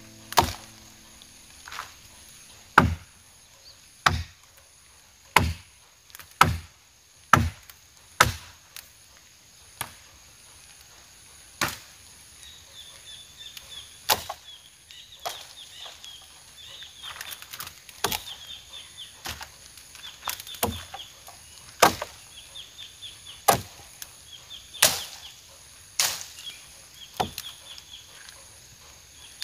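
A machete chopping felled branches: about twenty sharp, separate chops, a second or two apart, some louder than others.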